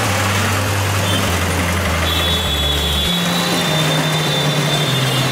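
Street traffic: motorbike, scooter and auto-rickshaw engines running and passing close by. A thin high-pitched whine joins about two seconds in.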